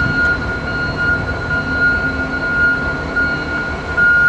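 Manifest freight train moving very slowly: a steady low rumble with a steady high-pitched whine running over it.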